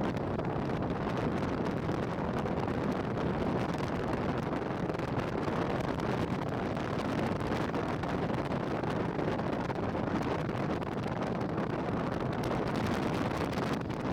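Steady rushing wind noise on the microphone while the Royal Enfield Meteor 350 motorcycle is ridden.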